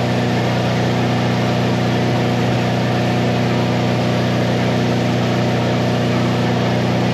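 Miller welding machine running steadily under load, with the steady hiss and crackle of a stick-welding arc burning a small 3/32 rod.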